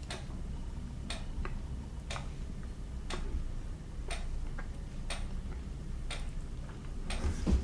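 Regular ticking, about one sharp tick a second, with fainter ticks between.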